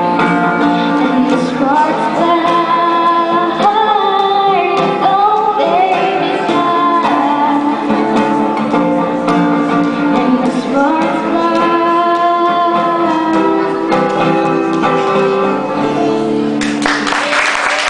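A woman singing a pop ballad to her own strummed acoustic guitar. About a second before the end the song finishes and applause breaks out.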